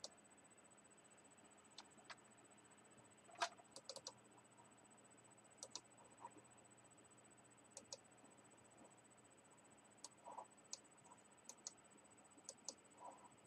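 Faint, scattered clicks of a computer mouse and keyboard, one or a few at a time, over near silence.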